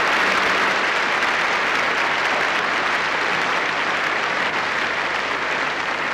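Large arena audience applauding steadily, easing off slightly toward the end.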